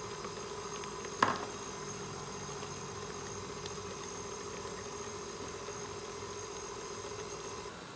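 KitchenAid tilt-head stand mixer motor running steadily as its flat beater mixes an egg into creamed butter and sugar in a steel bowl. There is one sharp knock about a second in. The motor switches off just before the end.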